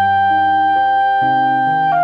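Clarinet holding one long high note over piano accompaniment whose lower chords change about every half second; the clarinet steps down to a new note near the end.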